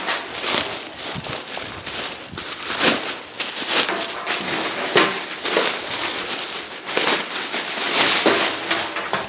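Thin clear plastic bag crinkling and crackling in a continuous run of sharp rustles as it is torn open and pulled off a fabric backpack; it stops abruptly at the end.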